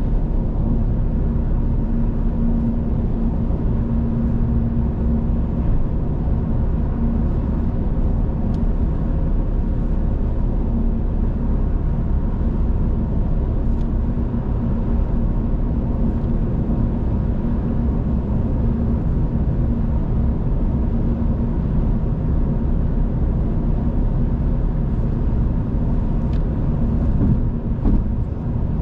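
Car on the road: steady rumble of tyres and engine with a constant low hum.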